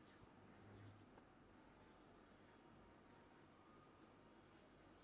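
Faint scratchy strokes of a marker pen writing on a whiteboard, coming in short irregular runs.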